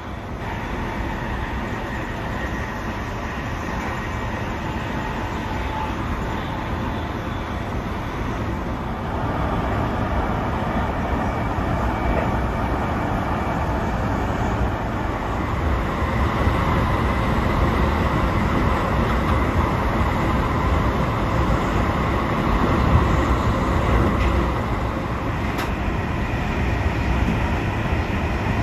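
Electric-hauled passenger train running at speed on the rails: a steady rumble of wheels on track that grows louder about nine seconds in.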